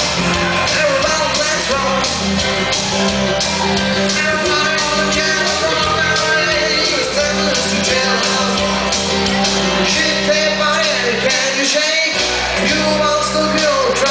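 A live Schlager-rock band playing: a man singing over electric guitars and keyboard with a steady beat.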